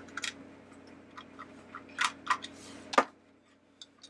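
A small Phillips screwdriver backing a screw out of the base of an animated teacup ornament: light, scattered clicks and ticks, then one sharper knock about three seconds in.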